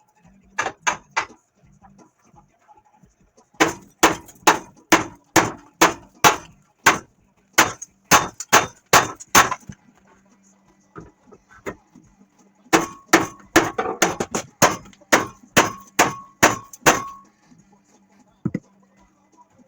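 A hammer striking steel in three runs of blows at about two a second, the later run with a metallic ring to each blow.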